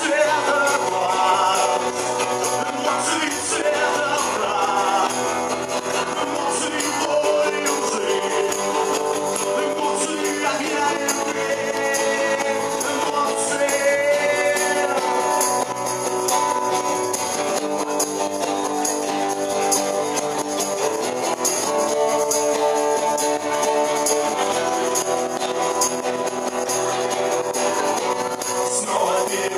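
Live rock band playing: guitars, hand percussion and a male singer, recorded loud in the room.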